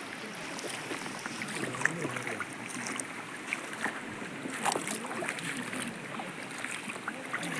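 Water splashing and running, with scattered small splashes and knocks.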